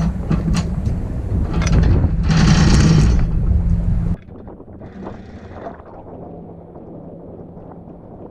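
A motor running with a steady low hum while wind buffets the microphone in gusts; about four seconds in it cuts suddenly to a quieter, steady hum.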